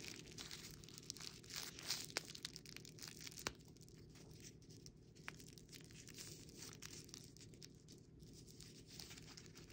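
Faint rustling and small clicks of tightly tied packaging being tugged and torn at by hand, with a few sharper ticks.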